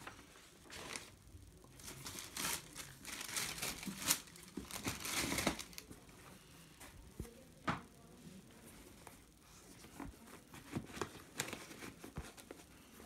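Tissue paper rustling and crinkling as it is pulled back inside a cardboard shoebox, loudest for a few seconds early on. Then lighter rustles and a few sharp knocks as a boot is lifted out and handled.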